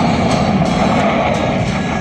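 Music with a steady drum beat over the PA, mixed with the steady roar of Blue Angels F/A-18 jet engines.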